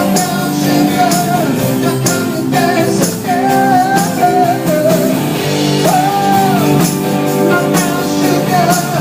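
Rock-style song playing loudly: a singing voice holds and bends long notes over guitar chords and a steady drum beat.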